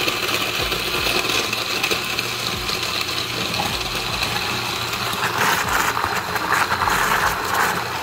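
Oster countertop blender running steadily at speed, churning heavy cream with ice-cold water to whip and separate it into butter.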